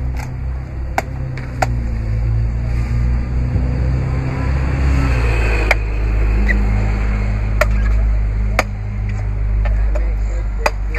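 Machete chopping into a green coconut: sharp single strokes, about seven of them at irregular intervals a second or more apart. A steady low rumble runs underneath.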